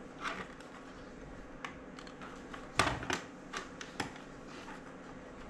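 Irregular plastic clicks and knocks from a toy remote-control car and its pistol-grip transmitter being handled, the loudest knock about three seconds in.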